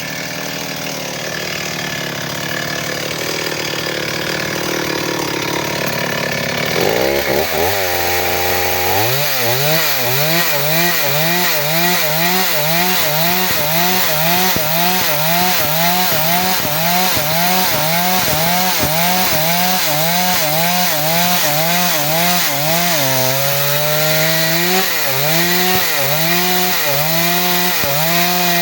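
Large two-stroke chainsaw cutting wood under load. For the first several seconds it is a steady rasping cut; about seven seconds in the engine note starts to rise and fall in a regular rhythm, about one and a half swings a second, dipping briefly near the end.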